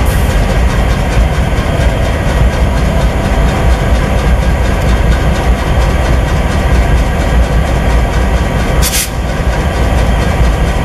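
EMD GP38-2 diesel locomotives throbbing at idle with a steady chuffing pulse, which the uploader puts down to the units' poor condition. About nine seconds in there is one short burst of air hiss.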